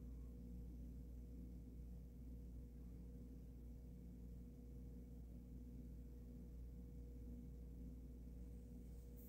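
Near silence: a faint, steady electrical hum in the room tone, with a faint click near the end.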